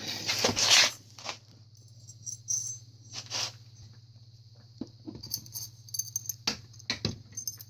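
Scattered clicks, clinks and short rattles of metal bicycle fork and headset-bearing parts being handled and fitted, over a faint steady low hum.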